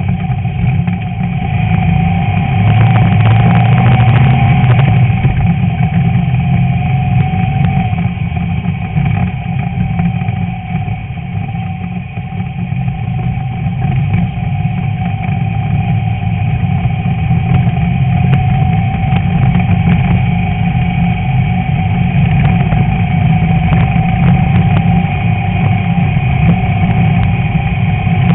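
A VW Beetle's air-cooled flat-four engine running steadily under racing load. It eases off briefly near the middle, then picks up again.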